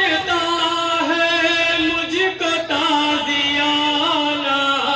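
A man singing a noha, a Shia mourning lament, in long drawn-out notes that slide slowly from one pitch to the next.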